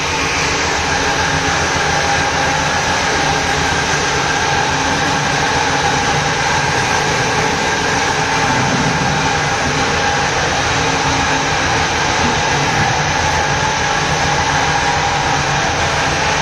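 Continuous, steady machine noise from an engine running without change.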